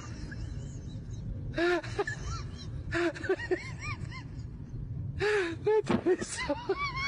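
A man's short wordless vocal sounds: a handful of brief gasps and exclamations, each rising and falling in pitch, over a steady low rumble.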